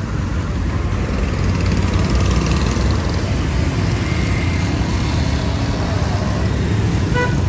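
Steady street traffic noise from motorbikes and cars running past.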